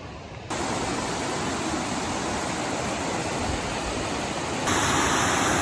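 Steady rush of falling water from a waterfall. It comes in suddenly about half a second in and jumps louder near the end.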